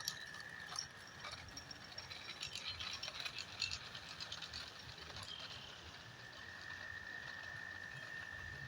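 Faint rattling and clicking from an electric scooter riding off along the park path, fading over the first few seconds. From about six seconds in a steady high-pitched call, like the frog song heard in the park, runs in the background.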